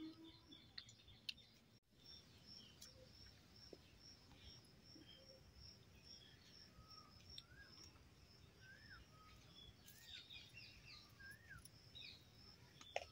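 Faint birdsong: a high short chirp repeated evenly about three times a second, with short rising-and-falling calls from other birds in the second half.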